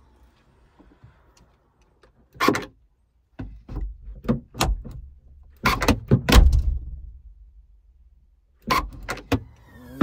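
The tailgate and newly replaced rear lock of a VW Passat B8 estate being tested: several clicks and knocks, then a heavy thud about six seconds in as the tailgate shuts and latches. Near the end come a quick run of sharp clicks as the electric lock releases and the tailgate opens, showing the new lock works.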